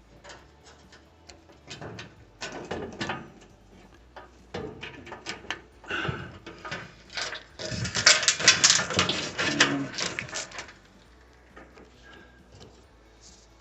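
Hands handling washer parts: irregular clicks, knocks and scraping as wiring and parts are pushed into place, with a busier stretch of rapid clattering around eight to ten seconds in, then it goes quiet.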